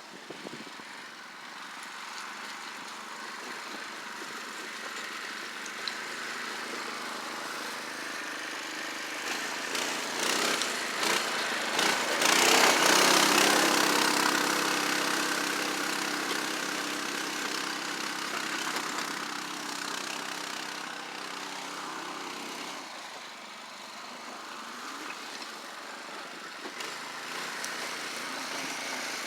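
Harbor Freight Predator 212cc single-cylinder engine on an ATV running steadily. It grows louder about twelve seconds in, then fades back.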